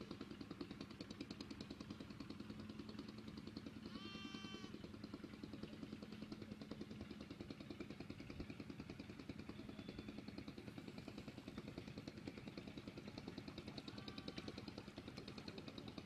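A steady low hum with a fast, even pulse, like a small engine running at a distance. A short animal call comes about four seconds in, and a fainter one near the end.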